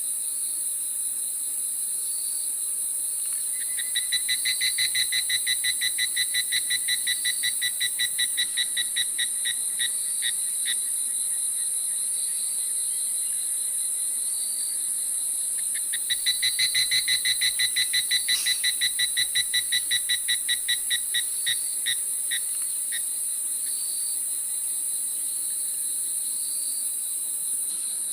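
Steady high-pitched chorus of crickets. Twice, an animal gives a long series of rhythmic pulsed calls, several a second, that thins out and stops.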